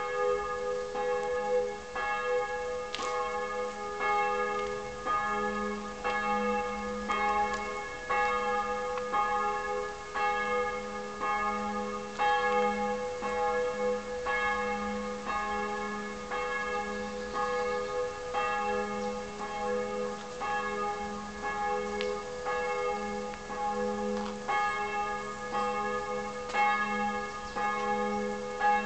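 Church bells ringing, struck over and over roughly once a second, with several tones humming on between the strikes.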